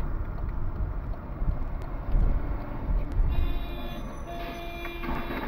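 Car moving slowly in city traffic, heard from inside: a steady low engine and road rumble with a few knocks. From a little past halfway, a held high-pitched tone made of several stacked pitches joins in.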